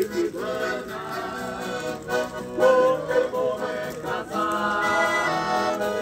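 Live band playing traditional festa junina music, led by an accordion holding sustained chords and melody, with an acoustic guitar in the band.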